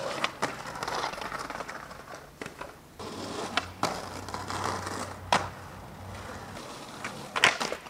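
Skateboard wheels rolling on asphalt, broken by sharp clacks of the board popping and landing, and the board scraping along the top of a concrete curb. Several clacks, the loudest near the end.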